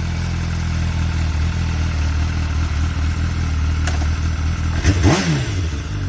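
MV Agusta F4 superbike's inline-four engine idling steadily, with one quick throttle blip about five seconds in that rises and falls back to idle.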